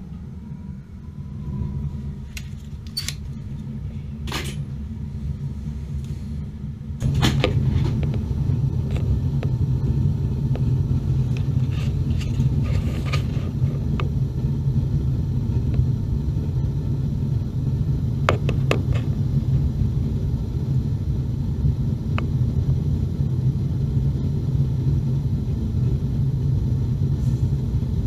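Natural-gas water heater burner lighting, with a sudden jump to a louder, steady low rumble about seven seconds in, then burning steadily with a few scattered clicks. The heater has been repaired and the burner is staying lit.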